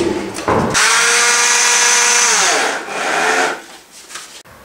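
Handheld power drill running with a steady whine that drops in pitch about two seconds in as the motor loads up and slows. A short second burst follows before it stops.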